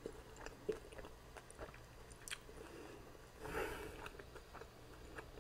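Close-miked chewing of a soft cheese-shell steak taco: faint wet mouth clicks and smacks, with a brief louder burst of mouth noise a little after halfway.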